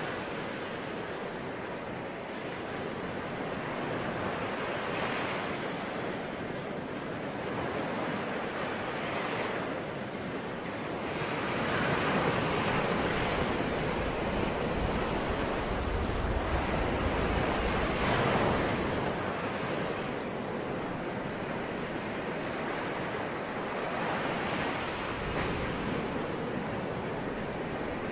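Sea waves breaking and washing on a shore, the surf rising and falling every few seconds, with some wind.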